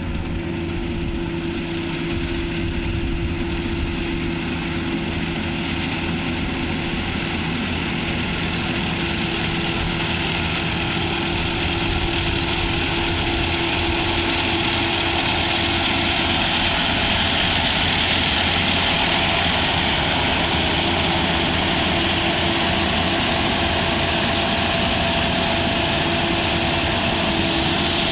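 Engine of a rice harvesting machine running steadily, with a constant hum and a hiss that grows slightly louder about halfway through.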